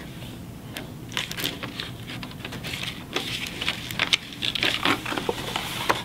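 Irregular small clicks and rustling from hands working a wire onto a brass paper fastener and handling stiff cardstock.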